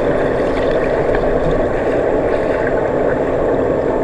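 Swimmers' freestyle strokes and kicks heard underwater in a pool: a steady, muffled rush of churning water and bubbles.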